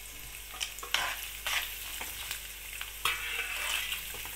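Cashews, coconut pieces and raisins sizzling in ghee in a kadai, stirred with a metal spatula that scrapes across the pan a few times.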